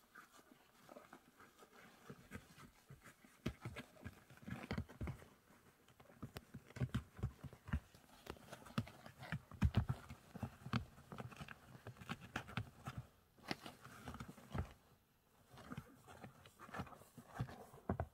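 English Bulldog puppy snuffling and snorting in his sleep: faint, short, irregular snorts and snuffles, busiest in the middle.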